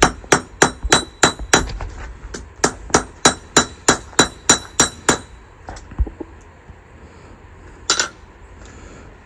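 Blacksmith's hammer striking iron on an anvil with a ringing clang, about three blows a second in two runs with a short pause between. A few lighter taps follow, then one sharp clank near the end.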